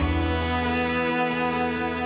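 Background music: sustained bowed strings, violin and cello, holding a chord.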